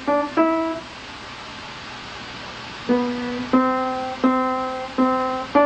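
A slow melody of single notes, one at a time, each ringing and fading away, with a pause of about two seconds after the first two notes.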